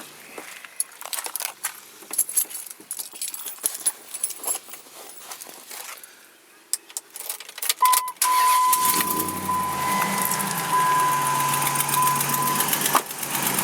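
Keys jangling and being handled, then about eight seconds in the 2004 Dodge Ram 1500's engine starts from cold and settles into a loud idle with a steady high tone over it for several seconds. A rapid clicking runs with the idle, which the owner takes for an exhaust manifold leak.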